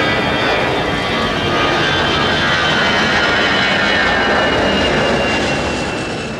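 Airbus A320 jet engines at takeoff power: a loud steady roar with several high whining tones that slowly drop in pitch, fading near the end.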